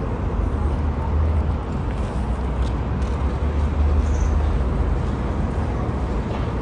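Busy city street ambience: a steady low traffic rumble with no single sound standing out.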